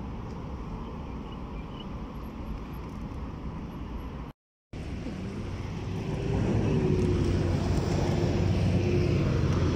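Road traffic: a steady low rumble of passing cars, which cuts out completely for a moment about four seconds in, then grows louder from about six seconds in as a vehicle with an engine drone goes by.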